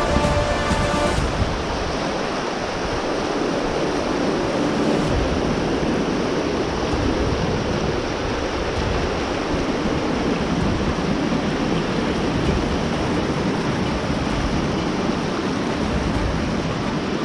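Steady rush of a high-running creek pouring over flat rock ledges, with uneven low rumbling at times from wind on the microphone. Background music stops about a second in.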